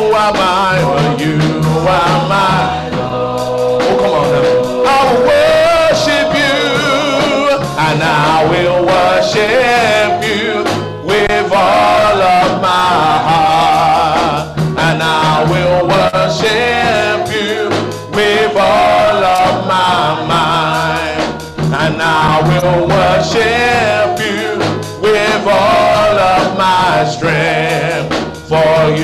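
Live church worship music: a band with drum kit, keyboard and guitar playing under a male and a female singer, continuously.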